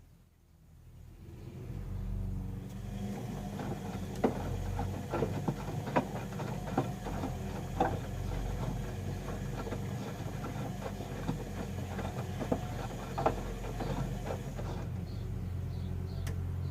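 Bauknecht WA 1460 front-loading washing machine running its wash: the drum motor starts up over the first two seconds and then turns the drum with a steady low hum, with scattered clicks and knocks.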